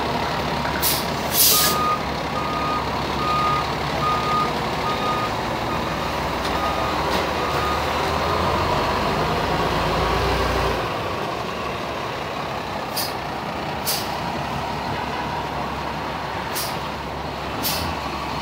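Fire engine backing up: its engine runs steadily under repeated reversing beeps that sound for the first several seconds, with several short sharp hisses of air from its air brakes. The engine note swells for a few seconds and then drops back about eleven seconds in.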